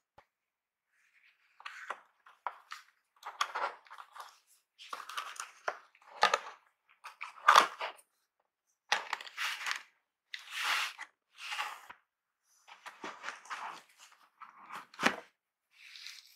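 Cardboard packaging and paper being handled: a string of short rustles, scrapes and a few sharp knocks, with brief silent gaps between them, as a small cardboard box and a paper user guide are lifted out of a laptop carton.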